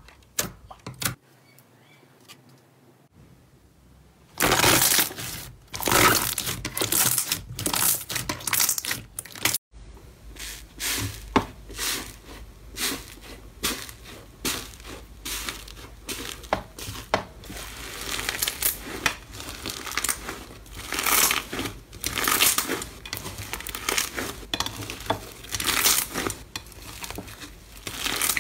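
Hands pressing and breaking crunchy iceberg slime, a dried crust over soft slime, with irregular crackling and crunching that goes on after the first few seconds. At the very start there are a few soft clicks from clear jelly slime being pressed, then a short quiet stretch.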